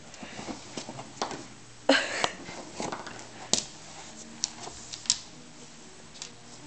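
A small pet moving about in its enclosure: scattered sharp clicks and rustles, with a louder scuffle about two seconds in.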